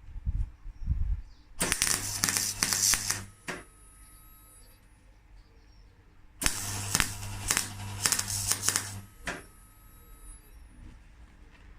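Two bursts of electric welding on steel, each a couple of seconds long: a dense crackle over a steady low hum from the welder. A sharp click follows each burst.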